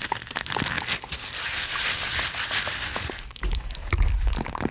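A hacky sack squeezed and kneaded close to the microphone, its filling crunching and crackling in a dense run of tiny clicks. Low thuds from handling join in about three and a half seconds in.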